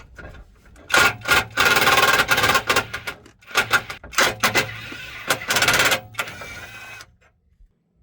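Impact wrench loosening the 18 mm cross member bolts, running in several hard bursts with a rapid hammering rattle, stopping about seven seconds in.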